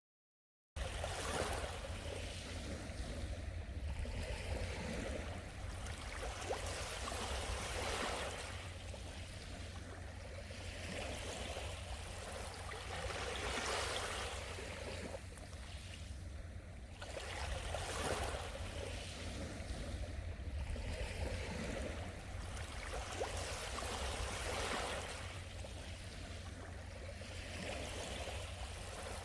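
Sea waves washing in continuously, swelling and falling back every few seconds. The waves start just under a second in, after a brief silence.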